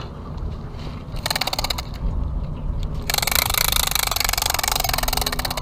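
Budget spinning reel being cranked, giving a fast, rattling whir of clicks: a short spell about a second in, then a longer spell from about three seconds in.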